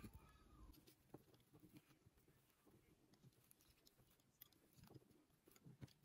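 Near silence with faint, scattered light taps and rustles as a silk petal is handled and pressed with a metal ball tool on a fabric-covered cushion.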